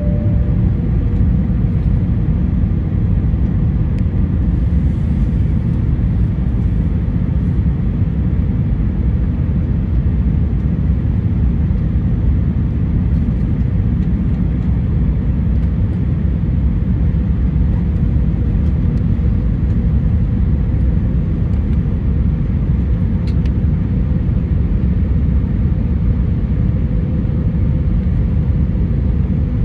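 Steady airliner cabin noise during the descent on approach: a constant low rumble of engines and rushing air, with a faint steady hum over it.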